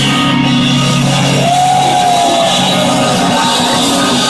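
Live jazz-fusion band playing loud on stage, over a held low note, with a pitched melody line that slides up and back down about a second and a half in.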